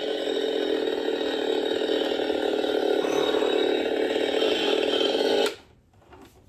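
Toy chainsaw prop running steadily, then cutting off suddenly about five and a half seconds in.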